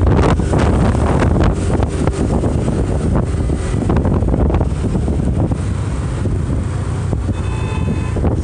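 Wind rushing over the microphone with road noise, from riding a motorbike through traffic. A brief high tone sounds about seven and a half seconds in.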